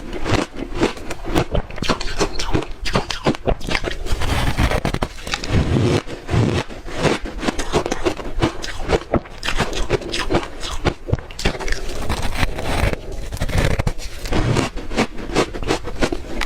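Close-up biting and chewing of crunchy ice chunks coated in matcha powder: a dense, continuous run of sharp cracks and crunches.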